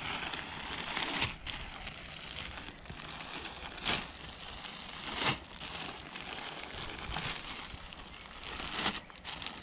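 Clear plastic zip-lock bag crinkling as it is handled with a handful of lead air-rifle slugs and silicone inside, to coat the slugs, with a few sharper crackles about 4, 5 and 9 seconds in.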